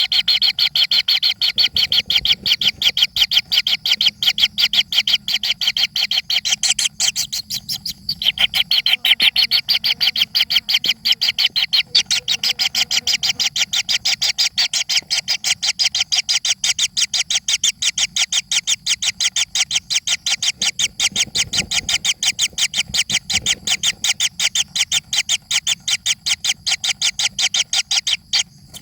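Young birds giving begging calls: a fast, unbroken run of short, high chirps, about five a second.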